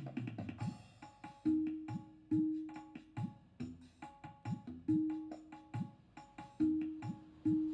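Background music built on a rhythmic hand-drum pattern: sharp strokes, some ringing with a held pitch, others sliding down in pitch.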